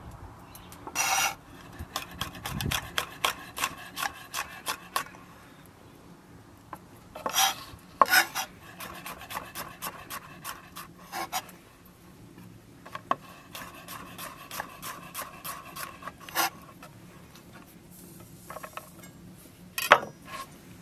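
Chef's knife chopping fresh red chillies on an end-grain wooden cutting board: quick runs of blade taps against the wood, several a second, broken by short pauses. A few scraping strokes of the blade across the board stand out among them.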